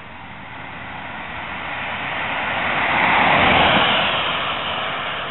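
A vehicle passing close by: a rushing noise that swells to a peak a little past halfway and then fades away.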